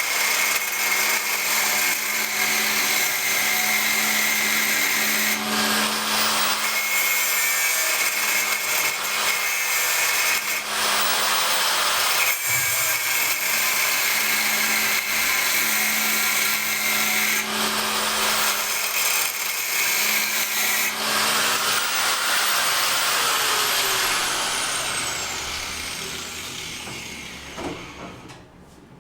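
A handheld power tool's motor running at steady speed. It stops briefly about four times and spins back up each time, then winds down with a falling pitch near the end, followed by a couple of knocks.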